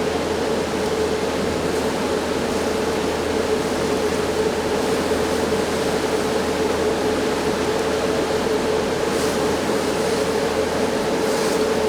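The tour boat's engine droning steadily while under way: a constant hum with a steady rush of noise and no change in speed.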